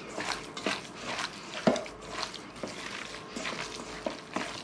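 Peeled hard-boiled eggs being squished and mashed by hand in a stainless steel bowl: a quick, irregular run of soft wet squelches and light taps, with one sharper knock about a second and a half in.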